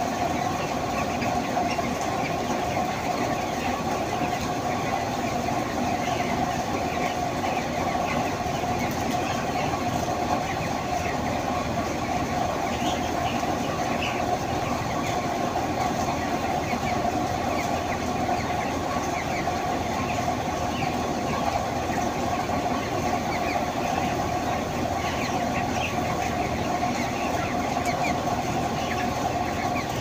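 A dense flock of thousands of broiler chickens in a broiler house: a steady, unbroken din of many birds with countless short cheeps over it.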